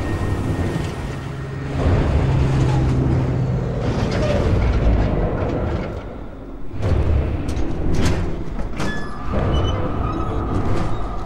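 Film soundtrack of heavy trucks rolling in, their engines running with a deep rumble, under a dark film score.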